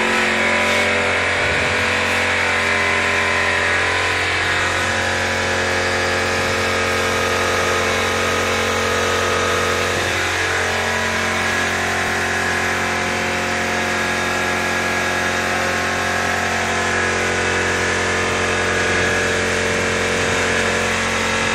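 A steady mechanical drone, a motor or engine running at constant speed with several unchanging hum tones over a noisy hiss.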